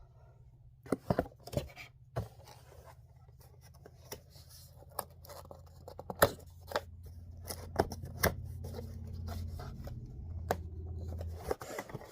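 A cardboard box and its packaging being cut and torn open by hand: scattered snips, rips and knocks of cardboard, which is a struggle to get open. A low steady hum runs underneath and grows louder in the last few seconds.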